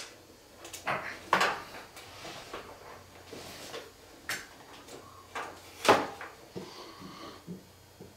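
Scattered clicks, knocks and light rattles of equipment and cables being handled inside a metal equipment rack. The loudest is a sharp knock about six seconds in.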